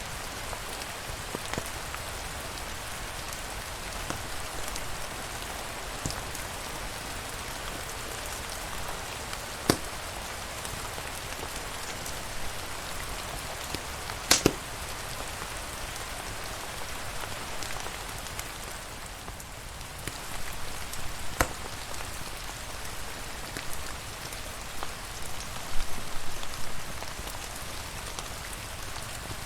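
Steady rain hissing, with a few sharp pops from a crackling wood fire, the clearest about ten, fourteen, twenty-one and twenty-six seconds in.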